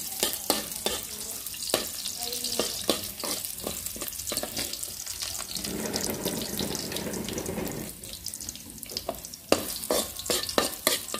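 Chopped garlic sizzling in hot oil in a metal wok, a steady hiss with frequent small crackles. Near the end a metal spoon stirs it, clicking and scraping against the pan.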